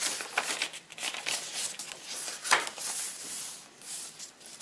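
Paper pages of a handmade junk journal being turned and handled: a run of rustling and light flapping, with one sharper page flick about halfway through.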